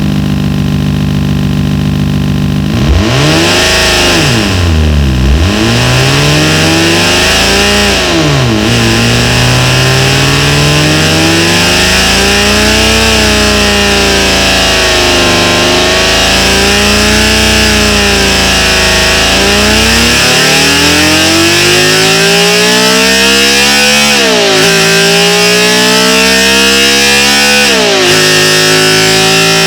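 Synthesized high-revving inline-seven engine sound. It holds a steady idle for about three seconds and is blipped twice. It then revs up and down several times, and in the last third climbs steadily in pitch, dropping sharply twice before climbing again.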